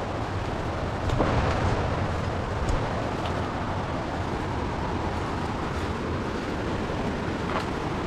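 Steady rushing rumble, louder for a moment about a second in, with a few brief snaps as someone pushes through forest undergrowth on foot.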